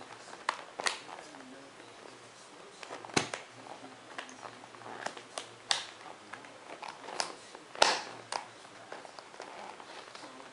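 Plastic lever buckles and straps on a Kangoo rebound boot being worked by hand: irregular sharp clicks and snaps with handling rustle in between, the loudest snaps about three seconds in and near eight seconds.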